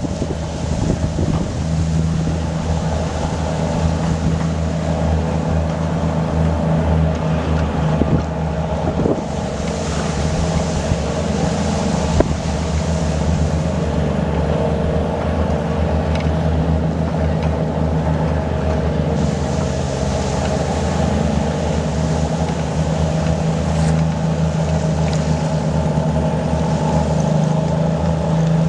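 Komatsu D155W bulldozer's diesel engine running steadily at a constant speed, with a haze of wind and water noise over it and a few brief knocks.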